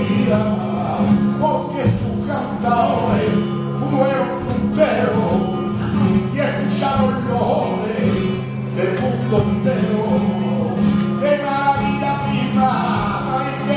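Live flamenco alegrías: a man sings over a flamenco guitar, with palmas (rhythmic hand clapping) keeping the beat.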